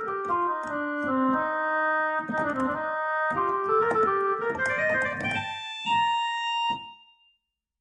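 Roland E-X20 arranger keyboard playing a quick single-line melody on one of its Indian voices, notes stepping up and down with a bright, overtone-rich tone; the phrase dies away and stops about seven seconds in.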